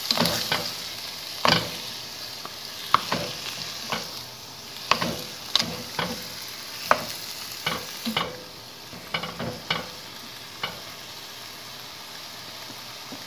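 Wooden spatula knocking and scraping against a stone-coated pan, stirring chunks of meat through frying tomatoes and onions over a steady sizzle. The knocks come irregularly, about one or two a second, and stop about ten and a half seconds in, leaving only the sizzle.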